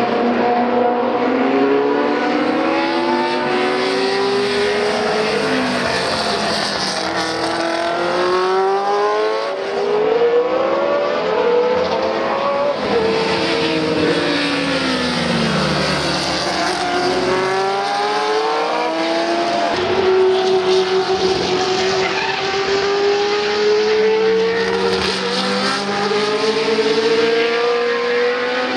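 Historic Formula One cars, among them a Lotus with a Cosworth DFV V8, running at racing speed. Several cars are heard at once, their engine notes rising through the gears and falling away again and again, overlapping.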